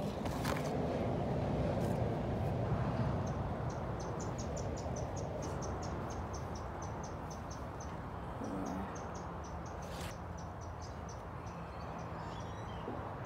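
A steady run of short high chirps, about two or three a second, from a small animal, starting about three seconds in and fading near the end. Under it is a low rumbling background with a few clicks and rustles from the phone moving among the leaves.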